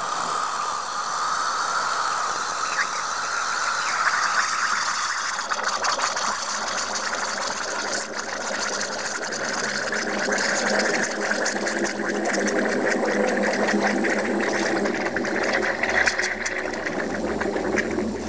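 A can of compressed-air duster, held to release its liquid propellant into a glass, spraying in a steady hiss with a faint whistling tone; the tone rises a little over the first few seconds, and the spray takes on a lower, rougher edge from about ten seconds in.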